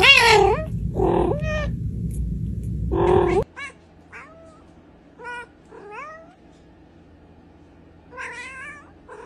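A cat meowing three times, loud calls that rise and fall in pitch, over a steady low hum. After a cut, another cat gives several short, quieter meows, with a longer one near the end.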